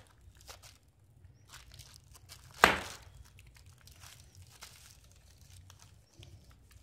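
Bubble wrap crinkling and crackling faintly as a ferret shifts about on it, with one loud sharp crack about two and a half seconds in.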